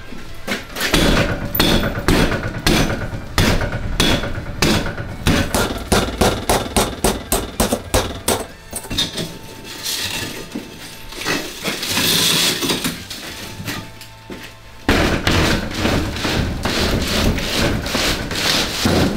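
A long metal bar striking a cracked glass door panel again and again, about two blows a second, with kicks against the glass; the crazed glass crunches but holds together in one sheet. After a looser stretch of jabs, a faster run of hits comes near the end.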